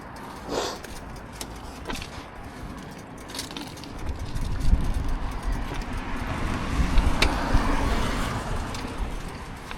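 A motor vehicle passing, its low rumble building from about four seconds in, loudest a little past the middle, then easing off; a few light clicks come before it.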